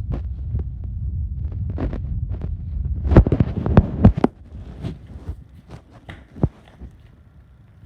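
Low rumbling with a string of sharp clicks and knocks, loudest about three to four seconds in, then fading to scattered faint clicks.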